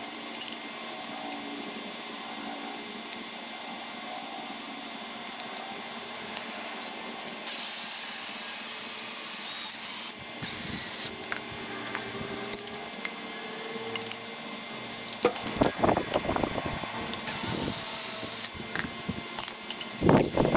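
Makita cordless drill (BHP451) boring pocket holes through a Kreg pocket-hole jig into a 1x4 board, in three bursts: a long one about seven seconds in, a short one right after, and another near the end. Between them come knocks and clicks from the clamp and jig being handled.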